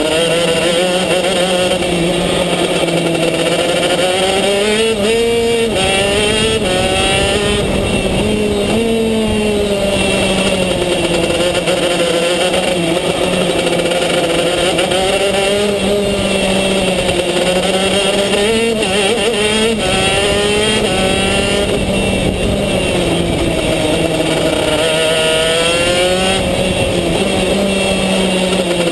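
Racing kart engine heard from on board, its revs climbing on the straights and dropping off into the corners again and again.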